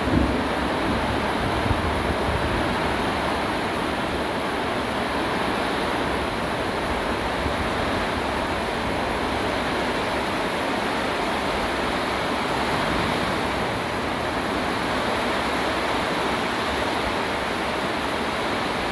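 Heavy rain falling in a steady downpour, an even rushing hiss that holds level throughout, with a brief low thump right at the start.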